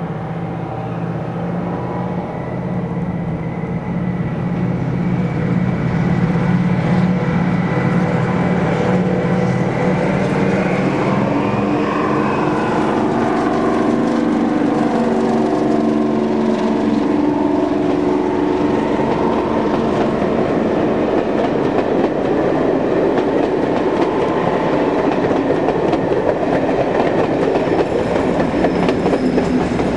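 A Class 55 Deltic diesel locomotive, its twin Napier Deltic two-stroke engines working, approaching and passing close by, its engine note dropping in pitch as it goes past about halfway through. The coaches then clatter by over the rail joints, with a Class 56 diesel locomotive on the rear passing near the end.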